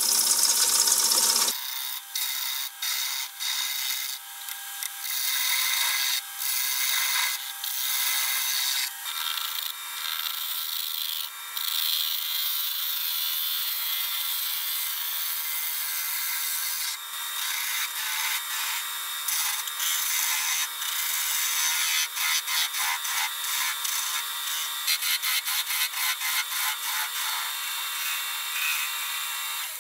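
Bowl gouge cutting spalted beech on a running wood lathe, shaving away the tenon from the bowl's base. The cuts start and stop over and over, with a longer steady cut in the middle and a quick run of short cuts near the end.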